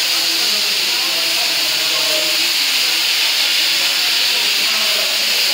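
Steam locomotive letting off steam: a loud, steady hiss. Voices are faint underneath it.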